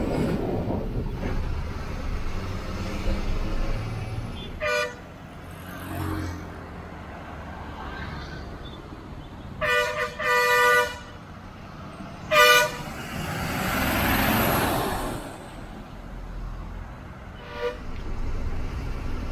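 Road traffic with a vehicle horn tooting five times: once about five seconds in, twice close together near ten seconds, once near twelve and a half seconds and briefly near the end, over the low rumble of a running truck. Around fourteen seconds a vehicle rushes past, rising and falling.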